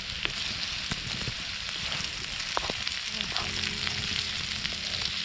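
Onion frying in a skillet over a campfire: a steady sizzle with scattered small pops.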